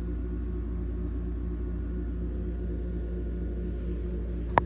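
Steady low background hum with no change, and one sharp click near the end.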